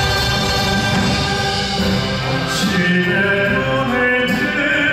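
Live classical-crossover song: a Korean traditional (gugak) orchestra playing, with male voices singing.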